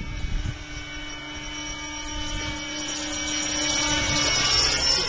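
Large electric-powered RC helicopter flying past, its motor and rotor giving a steady whine that grows louder to a peak near the end and then falls away.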